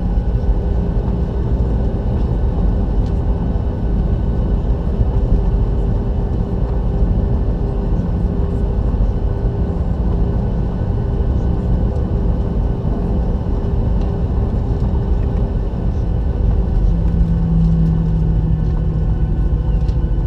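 Boeing 737-800's CFM56-7B jet engines running: a steady, loud rumble with a steady hum through it.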